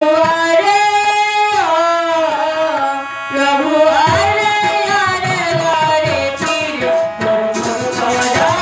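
A woman singing into a microphone, with long held notes that slide between pitches, over hand-drum accompaniment. From about six seconds in, a jingling metal percussion comes in.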